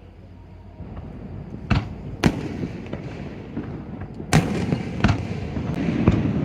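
Aerial fireworks going off: about a second in a rumble of bursts builds up, with five sharp bangs at uneven spacing and crackling between them.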